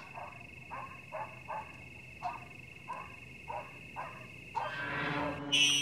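Night animal calls: short calls, often in pairs, one or two a second, over a steady high trill. Near the end a louder, higher sound swells in.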